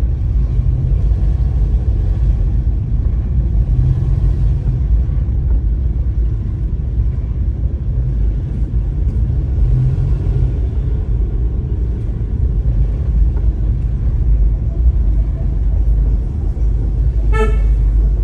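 Steady low rumble of a car's engine and road noise, heard from inside the moving car. Near the end a car horn toots twice, each toot short and about a second apart.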